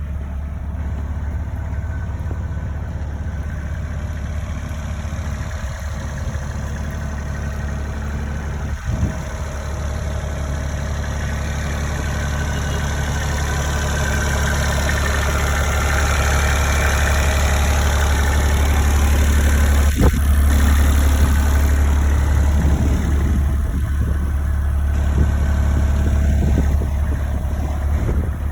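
Cat 301.8 mini excavator's diesel engine running steadily, growing louder about halfway through and holding there. A couple of short knocks, one about a third of the way in and one about two-thirds in.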